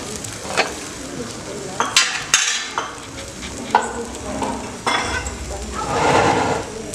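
Puran poli flatbreads frying on a hot iron griddle: a steady sizzle with scattered sharp pops and crackles of spattering fat, the sharpest pops about two seconds in.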